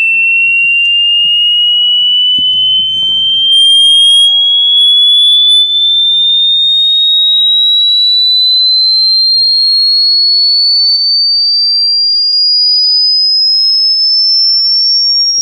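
Loud pure electronic sine tone sweeping slowly and steadily upward in pitch, from high to very high, a frequency-sweep tone of the kind played through a speaker to clear a muffled sound.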